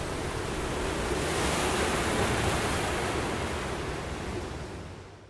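A steady rushing noise with no tone or beat in it, swelling slightly about two seconds in and then fading out near the end.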